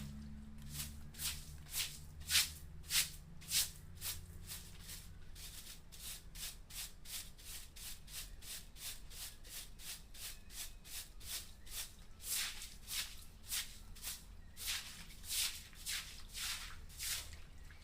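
Repeated scraping or brushing strokes at about two a second, louder for a few seconds near the start and again in the second half, over a low steady hum.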